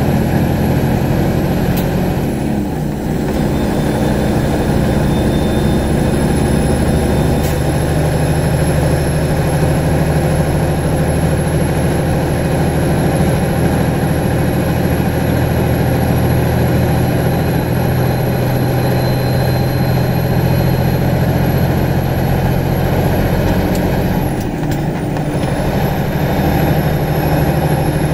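Heavy truck's diesel engine running, heard from inside the cab, with a high whine over it. Twice, about three seconds in and again near the end, the engine sound and whine dip briefly and then pick up again: gear changes on an 18-speed manual transmission.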